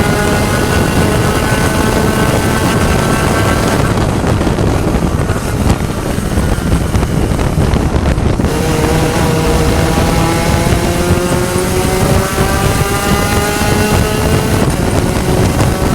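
Spec Racer Ford Gen3 race car engine at racing speed with wind rush. The engine note drops away about four seconds in as the driver lifts off, then picks up again about halfway through and climbs in pitch under acceleration.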